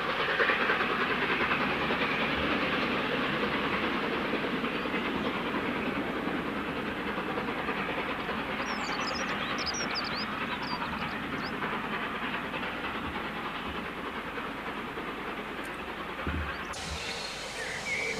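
Steam train drawing away, the locomotive's working and the rumble of its coaches slowly fading into the distance. A few short bird chirps come about halfway through.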